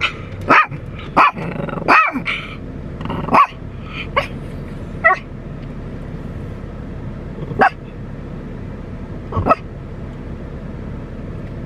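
Yorkshire terrier barking inside a car: about eight sharp barks, close together at first and then further apart. She is barking at someone getting into the car next to hers.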